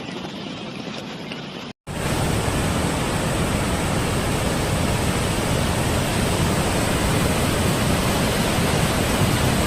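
Steady rushing roar of fast floodwater, which cuts out for an instant about two seconds in and comes back louder and fuller.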